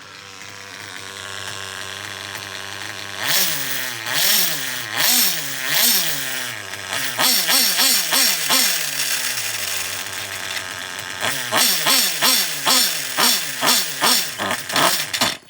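Yamaha R5 two-stroke parallel-twin engine idling, then revved in a long series of quick throttle blips, the revs rising and falling each time. It cuts off suddenly at the end. The owner hears a random noise running around inside it and suspects a bearing going out.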